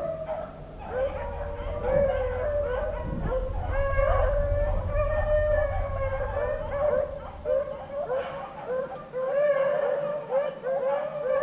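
A pack of beagles baying on a running rabbit, many dogs' voices overlapping without a break. A low rumble runs under them for several seconds in the middle.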